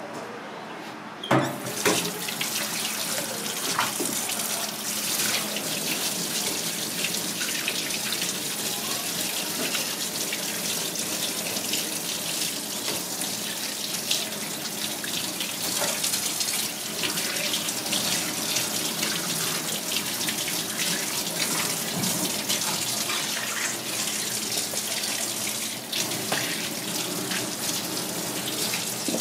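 Tap water running hard into a stainless-steel sink, splashing over a hand rinsing a sea cucumber under the stream. The water comes on suddenly about a second in and then runs steadily.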